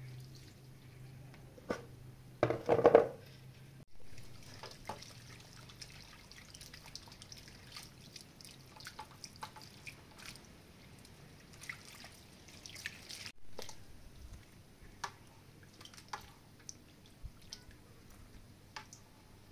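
Hands washing apricots in a plastic bowl of water: splashing and dripping as the fruit is stirred and lifted out, with one louder splash about three seconds in and scattered small drips and ticks after it.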